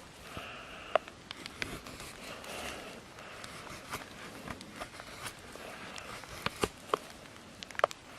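Mora knife shaving curls off a wooden stick for a feather stick: soft scraping strokes with scattered sharp clicks, the loudest about a second in and near the end.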